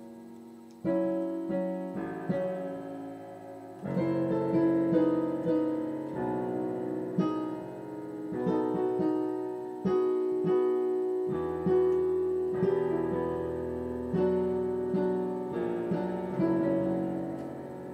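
Solo piano playing slow music, single notes and chords struck and left to ring, the playing picking up about a second in and fading away near the end.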